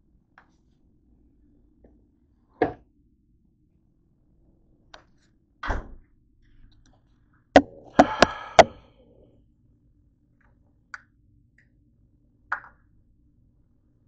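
Pan and metal forks being handled on a kitchen counter: a few scattered knocks and thuds, then a quick run of four sharp clinks with a short ring about eight seconds in, as the forks strike the pan.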